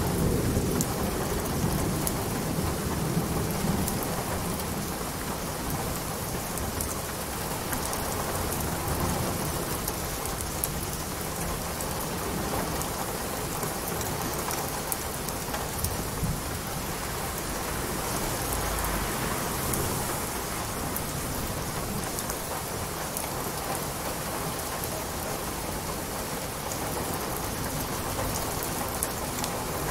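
Steady rain falling, an even dense patter, with a low rumble of thunder in the first few seconds.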